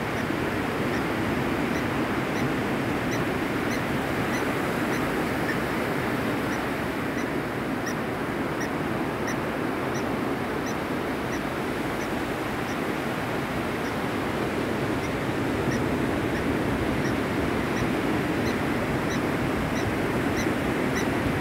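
Blacksmith lapwing (blacksmith plover) giving short, high, metallic 'tink' calls over and over, about once a second, over a steady wash of surf. The calls are its alarm at an intruder near its nest.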